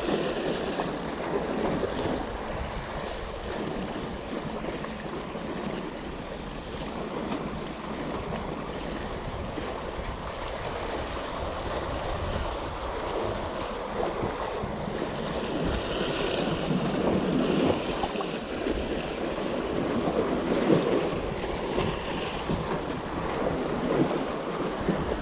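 Small sea waves washing against the boulders of a rock breakwater, rising and falling, with wind buffeting the microphone.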